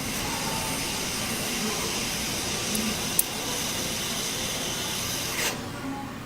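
Hot air rework station blowing a steady hiss of air, with a sharp click about three seconds in; the air cuts off suddenly about five and a half seconds in.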